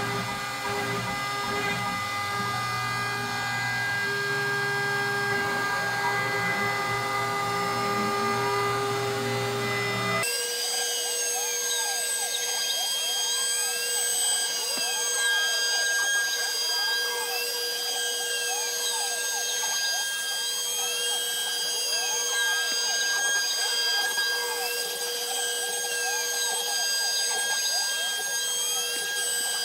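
MillRight Carve King hobby CNC router cutting quarter-inch MDF. A steady high whine comes from the spindle, and tones rise and fall over and over, about every two seconds, as the axis motors speed up and slow down. The sound changes abruptly about ten seconds in, where the lowest part drops away.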